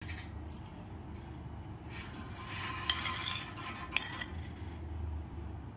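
A metal spoon stirring creamy chopped fruit salad in a glass bowl, with two sharp clinks of the spoon against the glass about a second apart midway.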